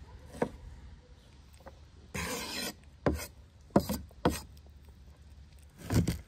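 Cleaver chopping red bell pepper on a wooden cutting board: about five separate knocks of the blade on the board, with a short scrape of the blade across the wood a little after two seconds in.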